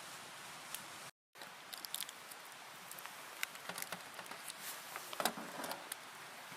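Scattered small sharp clicks and rustles over a steady hiss, busiest near the end, after a brief dropout about a second in.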